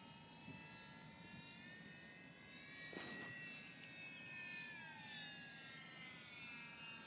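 Parkzone P-47 electric RC plane's motor and propeller whining faintly as it flies low on its approach to land, the pitch dipping downward in places. A short rush of noise about three seconds in.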